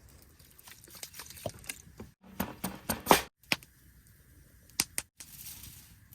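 Camp-cooking handling sounds: a run of sharp clicks and knocks, busiest and loudest in the middle, then a steady hiss near the end.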